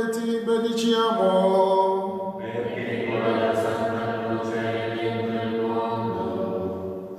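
Group of voices singing a slow hymn together, holding long notes; the sound fills out with more voices about two and a half seconds in and fades near the end.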